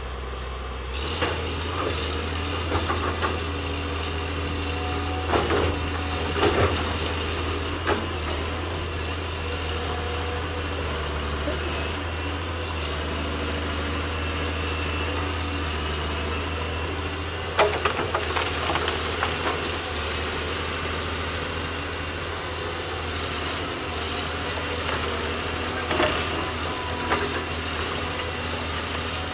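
Caterpillar 320C hydraulic excavator's diesel engine idling steadily, with a few short knocks scattered through it.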